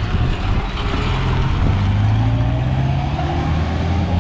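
Pickup truck engine pulling away and accelerating, its note rising gently as the truck drives off, with road noise underneath.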